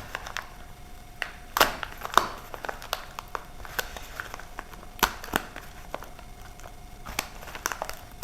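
Packaging being handled and opened by hand: irregular crinkling, crackles and sharp clicks and taps.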